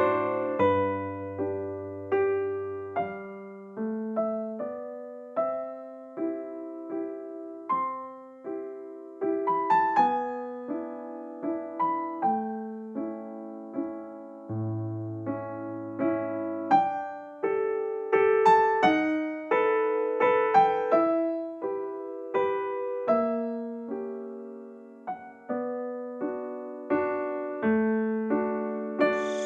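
Soft solo piano music: gentle melody over sustained chords, each note struck and fading.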